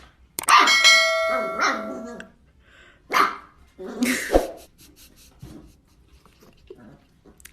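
A dog barking a few times, with a ringing, doorbell-like chime that starts about half a second in and fades over a second and a half.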